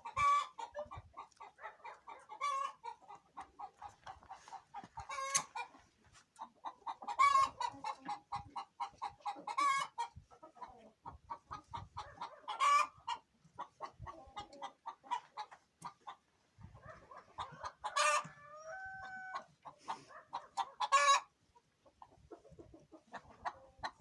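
Chickens clucking in a steady run of quick clucks, with louder cackling calls every few seconds.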